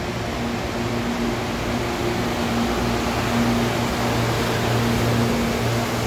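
CPTM Series 7500 electric train pulling into the platform at low speed: wheels rolling on the rails, with a steady low hum from the train. The sound grows slightly louder as the cars come alongside.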